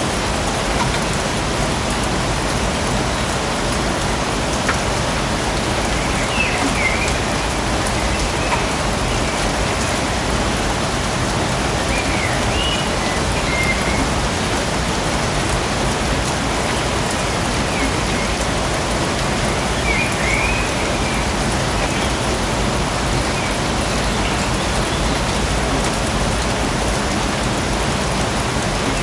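Steady rain falling, an even, unbroken hiss of drops. A few faint short chirps come through now and then.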